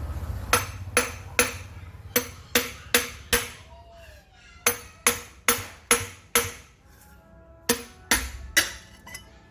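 Hammer blows on metal, about fifteen sharp ringing strikes coming two or three a second in groups of three to five with short pauses between, over background music.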